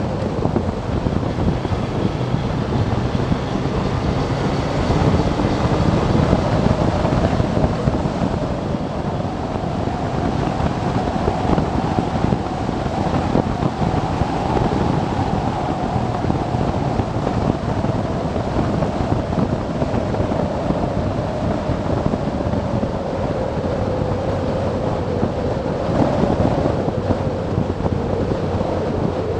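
Motorcycle riding at road speed: steady wind rush on the microphone over the engine's drone, whose note rises and falls gently as the speed changes.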